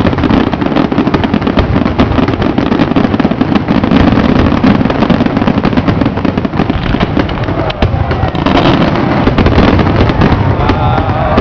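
Fireworks display: aerial shells bursting one after another in a dense, unbroken barrage of bangs and crackling.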